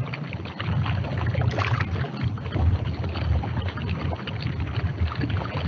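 Underwater stream ambience on a nature film's soundtrack: a continuous, irregular wash of water noise, heaviest in the low end.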